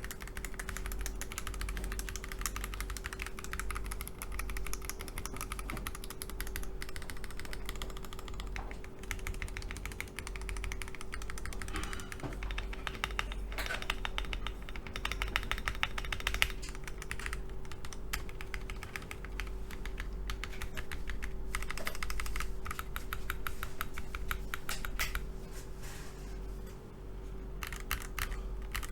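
Akko ACR Pro 68 mechanical keyboard in stock form, with Akko CS Crystal switches and its default metal plate, being typed on in fast, continuous runs of key clicks with short pauses. The stabilized long keys give very little ticking.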